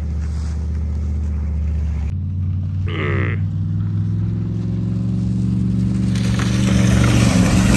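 Stretch limousine's V8 engine running hard at high revs while driving across a field, growing louder from about six seconds in as it comes closer, with a rush of tyre and ground noise.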